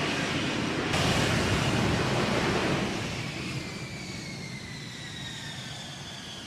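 Jet aircraft engine noise: a rush that swells about a second in and fades from about three seconds, with a high whine falling steadily in pitch as the jet passes.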